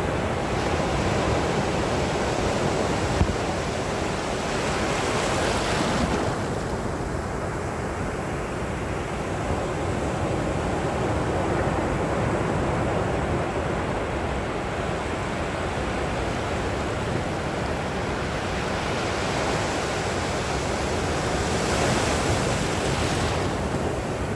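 Sea surf: a continuous wash of waves, with a wave breaking more strongly about five seconds in and another near the end.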